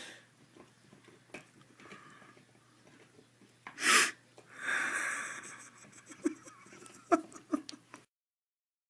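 A young woman burping once, loud and short, about halfway through, followed by a breathy exhale lasting about a second. A few light clicks come near the end.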